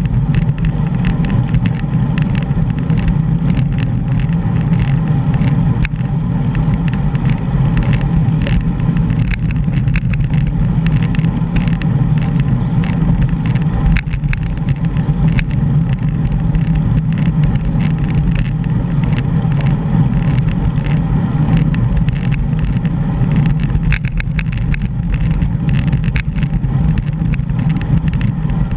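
Steady wind rush over a GoPro's microphone while cycling, with frequent small clicks and rattles from the ride.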